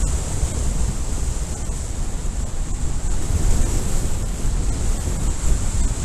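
Airflow of speedflying flight rushing over the camera microphone: loud, unsteady wind rumble with a steady high hiss.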